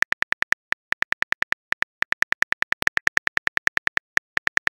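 Keyboard typing sound effect of a phone texting app: a fast run of short electronic clicks, about eight a second, one per letter, with a few brief pauses.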